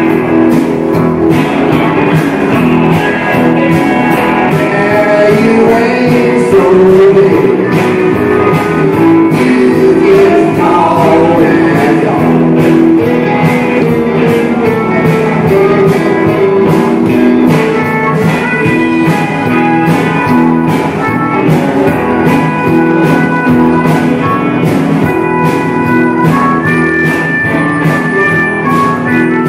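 A rock and roll band playing live, with guitars over a steady drum beat.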